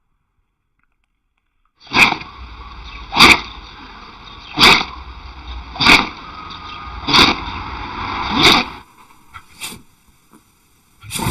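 A dog sneezing six times in a row, a sharp burst about every second and a half, over steady background hiss; another single sneeze comes right at the end.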